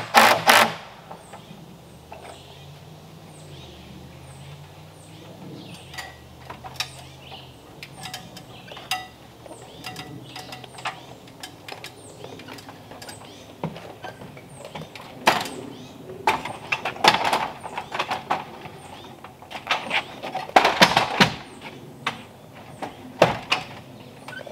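An aluminium ladder being climbed down and then shifted on a wooden deck: scattered knocks and footsteps, then a run of loud clanks and knocks from about two-thirds of the way through. A short loud power-tool burst is heard right at the start, and a faint high chirp repeats about twice a second in the background.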